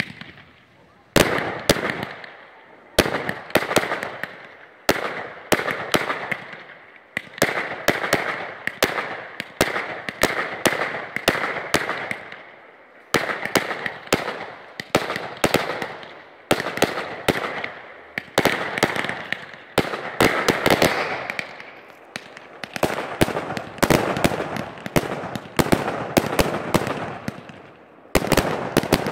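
Aerial fireworks display: shells launching and bursting in quick succession, many sharp bangs in runs of several seconds over a steady hiss, broken by a few short lulls.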